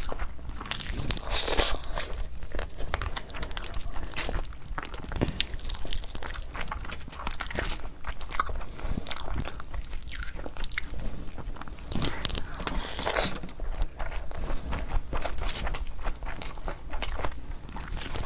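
Close-miked eating: a person biting and chewing food, with repeated irregular crunchy bites and mouth sounds.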